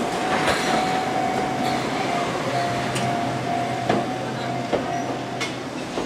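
An Enoden electric train passes slowly through the station's level crossing, its wheels clicking irregularly over the rail joints. A steady high tone sounds over the running noise and stops about five seconds in.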